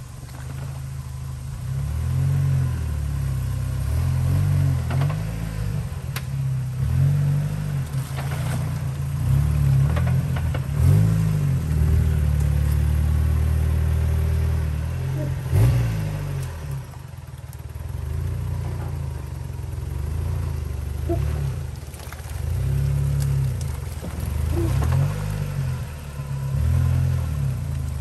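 Off-road vehicle engine running at changing revs while crawling a trail, rising and falling in pitch, with a brief rev about halfway through.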